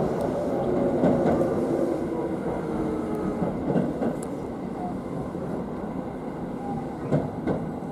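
Tobu commuter train running, heard from inside the car: a steady rumble with a faint motor whine and a few clacks of wheels over rail joints. The noise eases off as the train slows toward the station.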